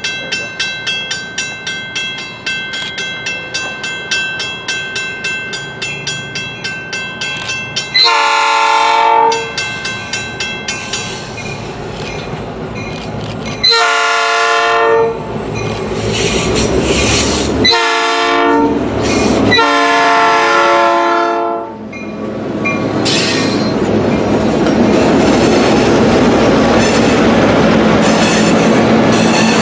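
A bell ringing quickly as Winchester & Western diesel locomotives approach. The locomotive horn then sounds the grade-crossing signal: long, long, short, long. After the last blast the lead units pass close, with loud engine drone and steel wheels on the rails.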